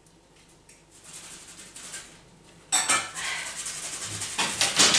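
Clatter of hard objects being handled: light knocks at first, then a sudden loud clatter a little before three seconds in that carries on to the end.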